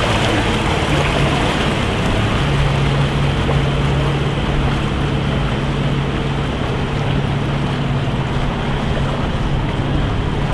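Narrowboat's inboard engine running steadily with an even low hum as the boat pulls away along the canal.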